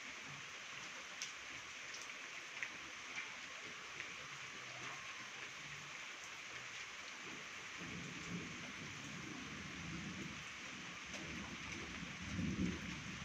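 Steady rain falling, with scattered drop ticks. A low rumble of thunder builds through the second half and peaks near the end.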